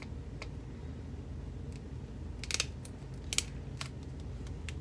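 A few short crackles and clicks from a roll of duct tape being handled, with two sharper crackling bursts about halfway through.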